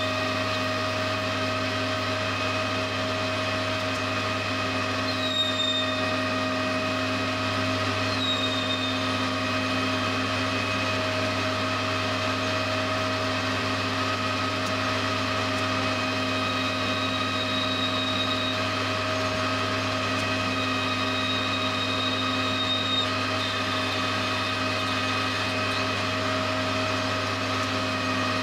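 Metal lathe running steadily as a turning tool cuts a round metal bar, a constant mechanical hum with a few brief high-pitched whistles now and then.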